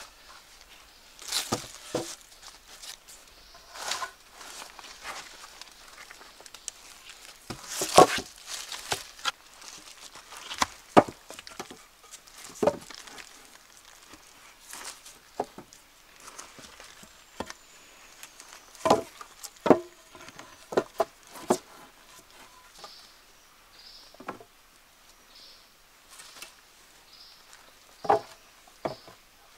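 Irregular knocks and clatter of wood being handled, with rustling in between; a couple of dozen sharp strikes spaced unevenly, the loudest about a quarter of the way in.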